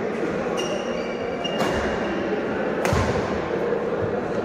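Badminton rally: two sharp racket strikes on the shuttlecock, about a second and a half in and about three seconds in, with a shoe squeaking on the court beforehand, over the steady din of a large hall.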